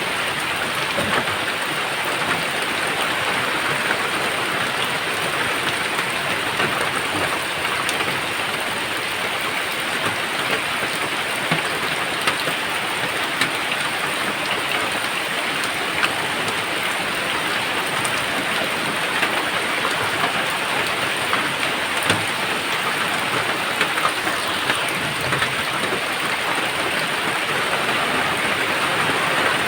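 Steady rain falling in a constant hiss, with scattered individual drops ticking.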